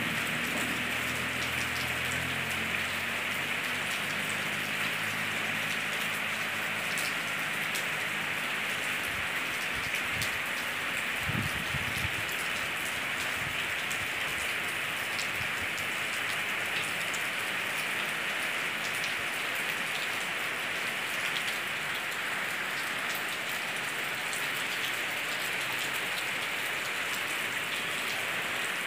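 Steady rain falling, with the fine ticks of individual drops striking close by.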